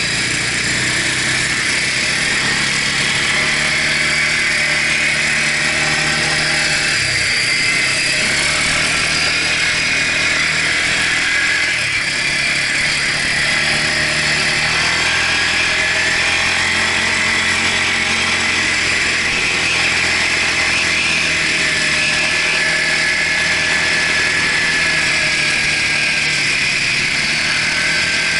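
Quad bike engine running steadily under way across sand, heard from on board with a constant rushing noise over it.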